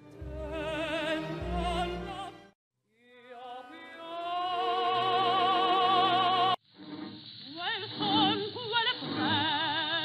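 Female operatic singing with wide vibrato, in successive recordings. First comes a passage with orchestra. From about three seconds in, a long held note swells louder. About six and a half seconds in, it cuts to an old, muffled recording of a soprano singing a moving line.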